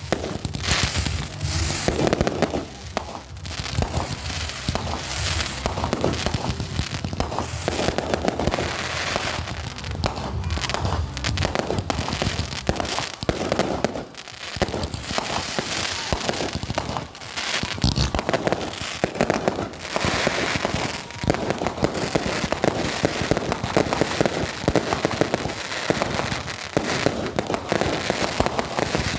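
Fireworks going off in a dense, continuous stream of bangs and crackling, with only brief lulls.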